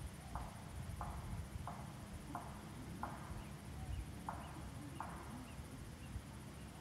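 An animal calling in a steady series of short, sharp calls, about three every two seconds, each starting suddenly and fading fast; the series stops about five seconds in. A few faint high chirps come in the middle.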